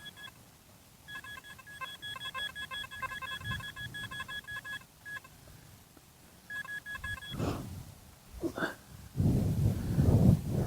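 Metal detector giving a rapid, pulsing high-pitched beep over a metal target in the dig hole, in two spells. It is followed near the end by louder scuffing and handling noise.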